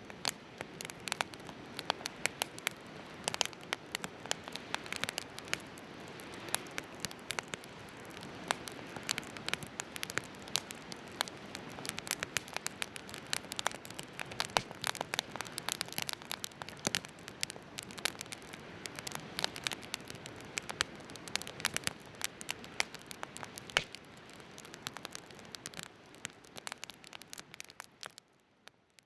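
Firewood burning in a fire pit, crackling and popping irregularly over a steady low hiss, fading out near the end.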